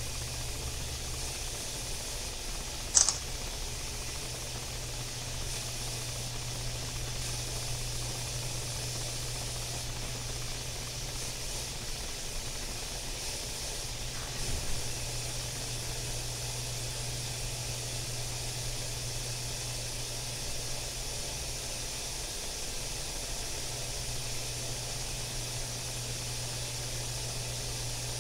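Room tone: a steady hiss with a low hum underneath, and one sharp click about three seconds in.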